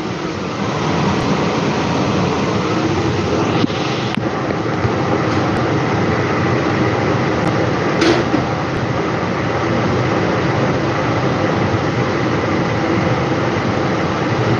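Kitchen extractor fan running with a steady loud whoosh and a faint hum in it, with a few light clicks about four and eight seconds in.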